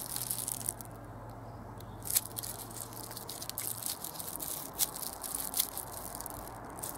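Quiet handling sounds of a tube of filler hardener being squeezed onto a mixing board: a few sharp clicks over low background noise. A steady low hum runs underneath and stops about four seconds in.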